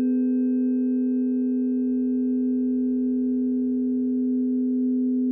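Blend of steady electronic sine tones, the planetary frequencies for the Sun, Moon and Uranus, sounding together as a sustained chord. Several low tones are strongest, with fainter higher ones above, all held at an even level without change.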